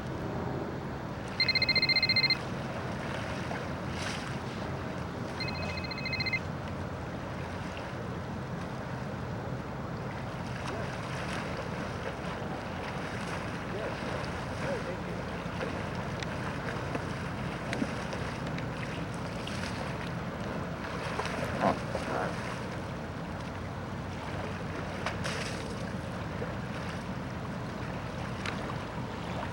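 Wind noise on the microphone over water lapping on open water. About a second and a half in there is a loud steady high-pitched beep lasting about a second, with a fainter repeat around six seconds in.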